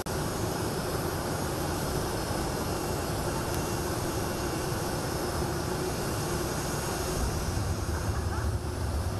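Jet engines of the Indonesian presidential Boeing 737 running close by: a steady rushing noise with a faint hum, the low rumble growing stronger about seven seconds in.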